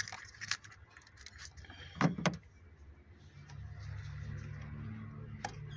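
Metal engine parts and hand tools being handled: scattered light clicks and clinks, with a louder knock about two seconds in. A low steady hum runs under the second half.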